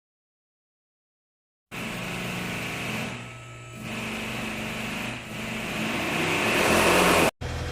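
Silence, then an engine running steadily, growing louder and cutting off abruptly near the end.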